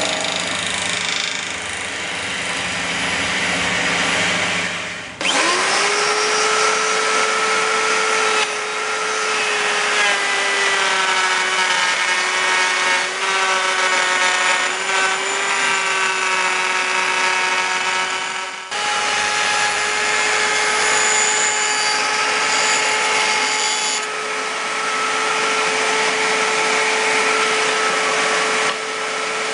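A milling machine's flycutter facing an aluminium plate makes a coarse, dense cutting noise until about five seconds in. After that a table-mounted router runs with a steady high whine, rising briefly at first, as aluminium angle is fed past its round-over bit.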